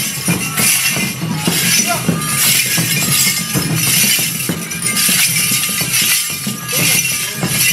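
Enburi dancers' jangara, wooden staffs hung with metal rings, jangling and clashing in a rough repeating rhythm about once or twice a second as they are shaken and struck down in the dance, over festival music.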